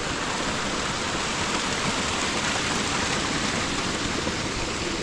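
Steady rush of running water, an even noise with no breaks.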